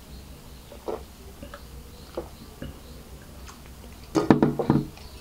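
A few faint gulps as a drink is swallowed from a glass beer mug, then a short cluster of clicks and knocks about four seconds in, the loudest part, as the mug is handled and set down on a wooden table.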